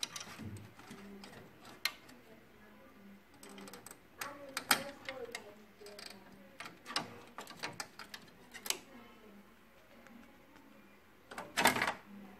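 Irregular clicks and knocks of HP P3005 laser printer parts being handled during disassembly, with a louder clatter near the end.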